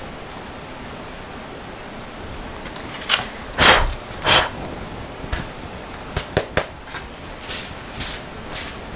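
Paper and a taped drawing board being handled on a table: a few loud rustling, sliding sounds about three to four and a half seconds in, three light clicks a little after six seconds, then soft brushing as a tissue wipes across the paper.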